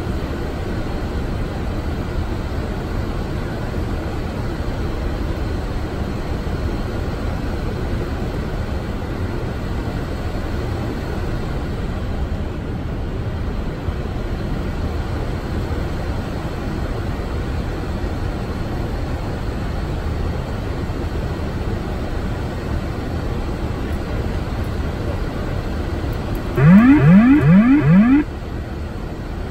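Steady flight-deck noise of a Boeing 747-8 on final approach: rushing air and engine hum. Near the end, four quick rising siren-like tones sound loudly for under two seconds, then stop: the autopilot disconnect warning as the autopilot is switched off for a manual landing.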